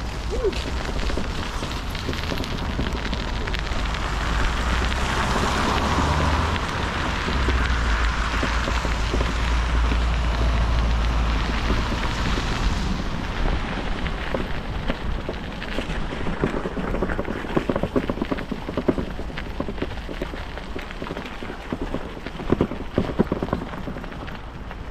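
Wind rushing over the microphone of a moving bicycle, with tyre noise from the path; the rumble is strongest in the first half, then a run of irregular clicks and rattles from the bike takes over.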